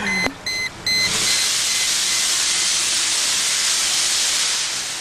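A quick run of short electronic chime beeps, then the 1998 Mercedes E320's engine is restarted and a loud steady hiss sets in: exhaust gas escaping from a hole pierced in the exhaust to get around a passenger-side catalytic converter that has disintegrated and blocked the pipe.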